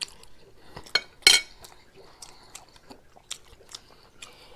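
Eating sounds: a fork or spoon clicking against a dish, with a louder clatter about a second in and soft mouth sounds of chewing.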